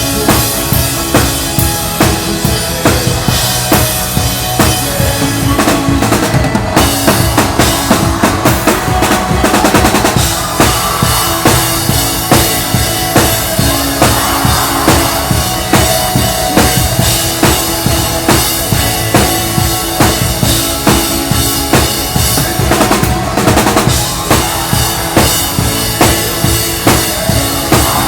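Drum kit played live with a worship band: a steady, driving beat of bass drum and snare with cymbals over the band's music, with a quick run of rapid strokes about ten seconds in.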